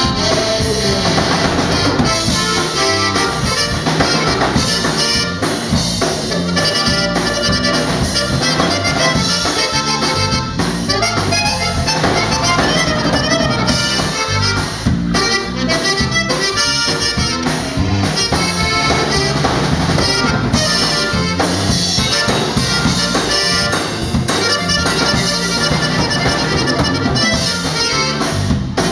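Live Tejano band playing an instrumental break, an accordion carrying the melody over a drum kit.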